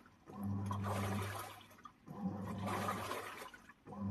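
Washing machine drum agitating in a wash cycle: the motor turns the water-filled drum in short bursts with a low hum and sloshing water, pausing briefly between turns as it alternates forward and reverse. About three turns are heard.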